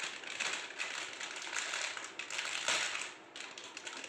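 Crinkly plastic snack packet being handled and torn open by hand: a dense, irregular crackle with one sharper crack, easing off about three seconds in.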